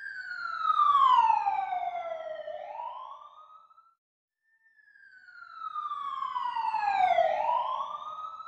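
Two sweeping whine sound effects about four seconds apart. Each has a pitch that glides down and then swoops back up, swelling and fading away.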